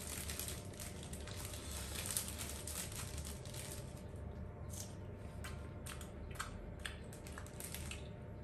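Thin plastic bag crinkling and rustling in the hands in short, scattered rustles, over a faint steady room hum.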